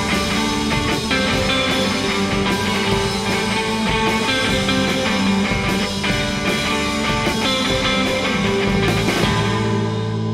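Live rock band playing loud: two electric guitars, an electric bass and a drum kit. Near the end the drums stop and a chord rings out.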